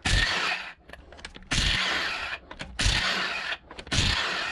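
Impact wrench run in four short bursts, each about a second long, loosening the wheel's lug nuts.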